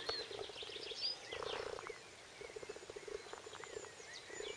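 Birds chirping and singing, with a repeated low, pulsing animal call beneath that comes in short spells, the clearest about a second and a half in.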